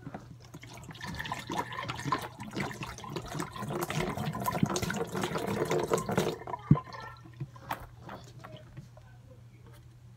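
Water poured from a plastic bottle splashing into a sink basin as the bottle is emptied; the pour stops about six seconds in, followed by a single sharp knock.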